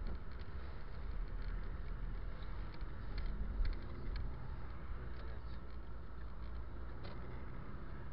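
Steady road and engine noise of a moving car, heard from inside the cabin: a continuous low rumble with faint scattered ticks.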